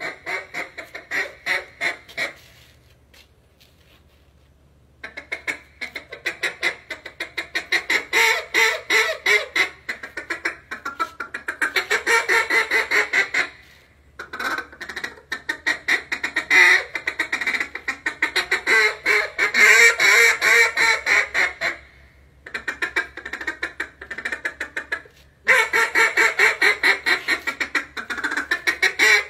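A hand-blown duck call sounding mallard hen quacks in long strings, some runs slower and some fast and rolling, broken by a few short pauses.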